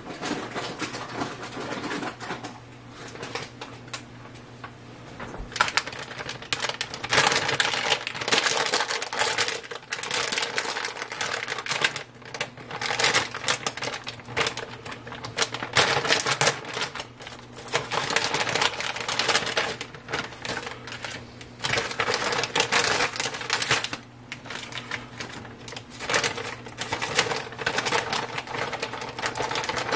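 Plastic packaging of tuna steaks crinkling and rustling as it is handled and opened, in irregular bursts of crackle. A faint steady hum runs underneath.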